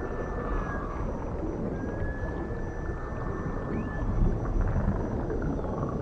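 Underwater recording of dolphin whistles over a steady low underwater rumble: a long, nearly steady whistle ends under a second in, then another runs from about two to four seconds and closes with a quick upward sweep.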